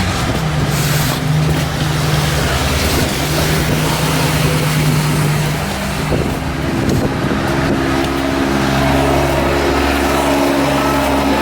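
A motor engine running steadily close by, its pitch stepping up about six seconds in.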